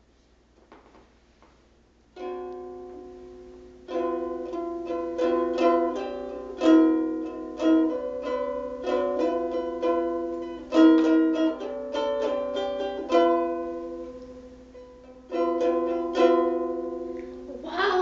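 Ukulele playing a song's introduction in fingerpicked and strummed chords, starting about two seconds in after a few faint clicks. The ukulele stops briefly near the end, then resumes, and a young female voice begins singing at the very end.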